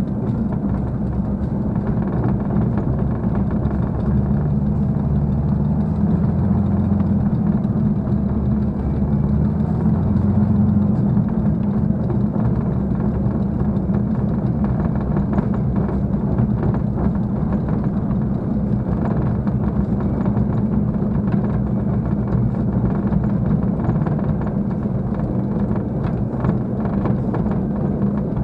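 Spitfire's V12 piston engine running at low power while the aircraft taxis, heard from inside the cockpit as a steady low drone whose note shifts for a few seconds early on.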